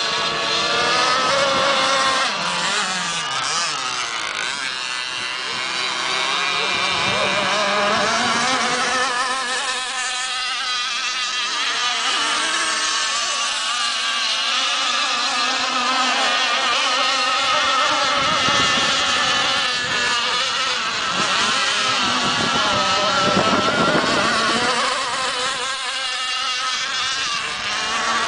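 Several radio-controlled model racing boats running flat out, their small two-stroke engines whining high, the pitch rising and falling continuously as the boats pass and turn.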